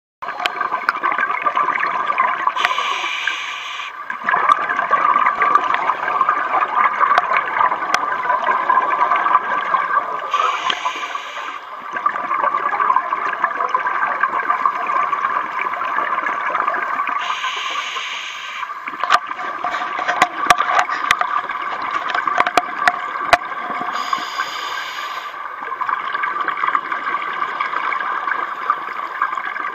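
Scuba diver breathing through a regulator underwater: a steady bubbling of exhaled air, broken four times, about every seven seconds, by a short hiss of inhalation through the regulator. A few sharp clicks come about two-thirds of the way through.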